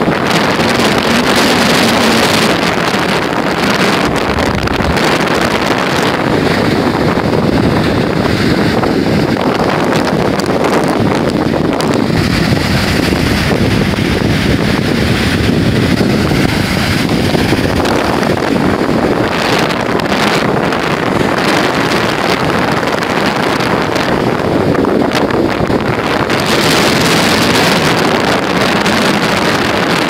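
Strong wind buffeting the microphone over storm surf breaking and washing up a sandy shore, a loud, steady rush.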